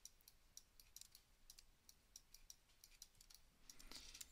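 Faint computer clicks from the mouse and keyboard, a few each second, over quiet room tone, with a short soft rush of noise near the end.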